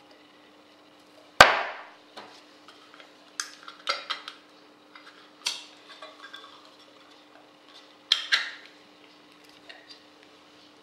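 Metal food cans clinking and knocking against a ceramic bowl and a wooden tabletop. There is one sharp knock about a second and a half in, then scattered clinks and scrapes as a ring-pull tuna tin is opened.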